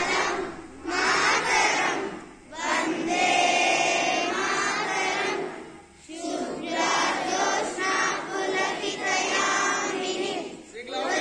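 A group of children singing together in unison into a microphone, in long phrases with short breaks between them, some notes held steady for a couple of seconds.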